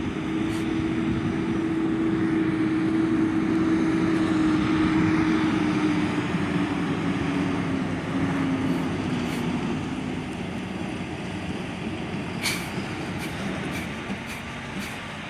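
Heavy dirt-hauling truck driving past, its engine running with a steady hum whose pitch sags slightly as it grows louder and then fades away. A few sharp clicks or knocks come near the end.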